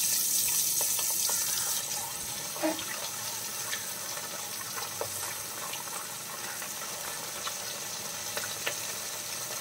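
Masala-coated sardines frying in hot oil in an iron kadai: a steady sizzle with scattered small pops and crackles, loudest in the first two seconds.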